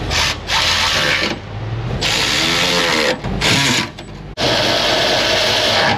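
Cordless power tool, run in four bursts of about a second each, driving in the radiator's bolts.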